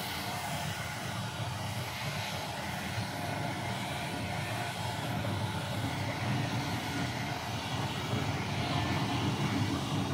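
Two-roll rubber mixing mill running, giving a steady, even mechanical drone from its drive.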